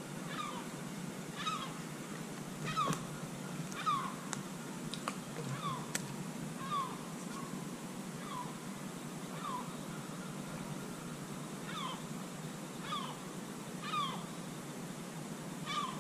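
An animal calling over and over: short calls that slide down in pitch, about one a second, with several overtones.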